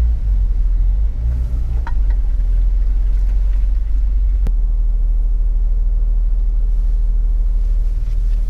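Steady low rumble of an off-road 4x4's engine and drivetrain heard from inside the cabin as it crawls along a muddy trail, with a single sharp knock about four and a half seconds in.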